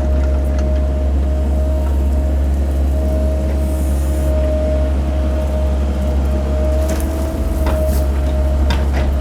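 Cat 308 mini excavator's diesel engine running steadily, with a constant whine over its low drone. A few light knocks come near the end.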